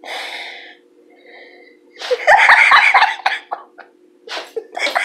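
A person laughing: a breathy burst at the start, a loud bout of laughter about two seconds in, then short repeated laughs near the end, over a steady low hum.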